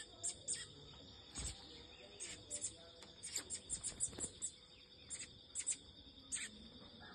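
Small birds chirping: short, very high-pitched chirps repeated irregularly, at times several a second, over a steady high-pitched insect drone. Two soft knocks sound about a second and a half in and about four seconds in.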